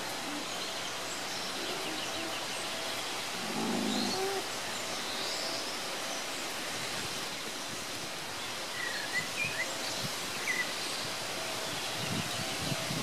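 Steady outdoor background noise with faint, scattered chirps of small birds, a small cluster of short chirps a little past the middle.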